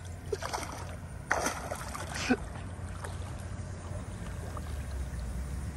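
Legs wading through pond water, with a few short splashing swishes in the first two and a half seconds, then softer sloshing over a low steady rumble.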